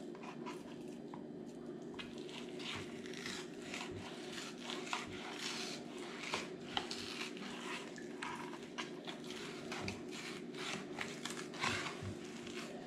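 Knife scraping along a plastic cutting board as it is worked between the skin and the flesh of a snakehead fillet, with irregular short scrapes and wet clicks of the skin and meat. A steady low hum runs underneath.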